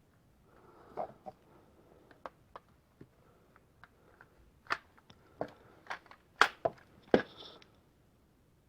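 Lego brick pistol being worked by hand while its mechanism is tested: an irregular run of sharp plastic clicks and clacks, about a dozen, the loudest two a little past the middle, with some soft handling rustle.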